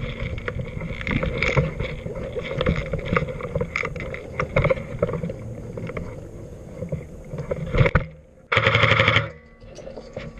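Footsteps, gear rattle and brushing through foliage as an airsoft player moves, then, about eight and a half seconds in, a short loud full-auto burst from the player's airsoft rifle.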